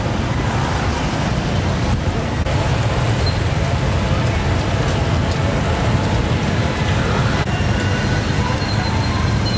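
Steady street traffic rumble, with faint voices mixed in.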